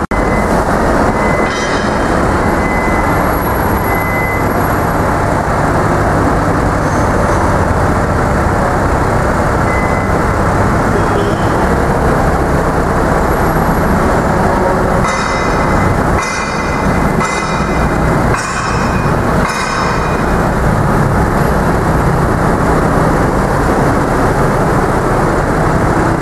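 Engine of a truck-mounted aerial lift running steadily while its hydraulic boom is raised. Several brief higher-pitched sounds come about two-thirds of the way through.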